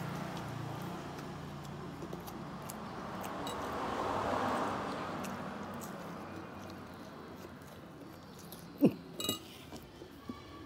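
A metal spoon clinking and knocking against a plate during a meal, with the two sharpest knocks close together near the end, over a steady background hiss that swells and fades in the middle.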